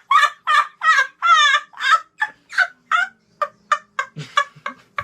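Comic sound effect inserted into the narration: a run of short, squawking, gobble-like calls, about three a second, slowing and fading toward the end.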